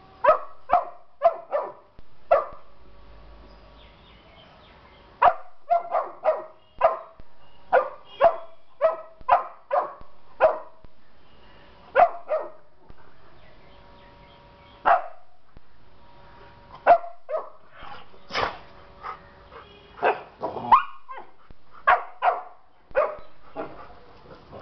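Rottweilers barking in play, a two-month-old puppy and a two-year-old female: many short, sharp barks in quick runs with brief pauses between them.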